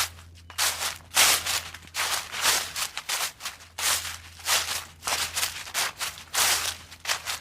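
A series of short crunching noises, about two a second and slightly uneven, over a faint steady low hum.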